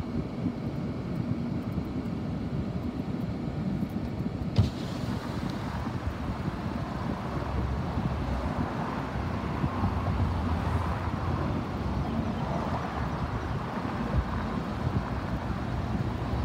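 Steady low rumble of road traffic, with a sharp click about four and a half seconds in.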